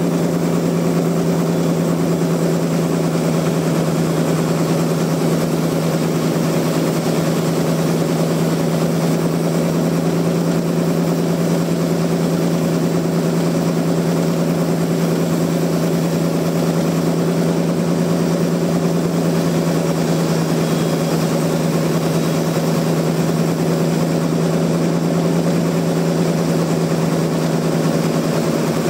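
Sawmill machinery running steadily: a constant low engine-like hum with its overtones, unchanging in pitch or loudness.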